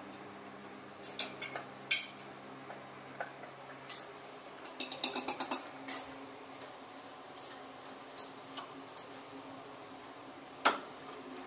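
Metal clinks and clicks of hand tools and fasteners against motorcycle parts during dismantling: scattered single sharp clicks, a quick run of about eight clicks about five seconds in, and a louder clack near the end, over a faint steady hum.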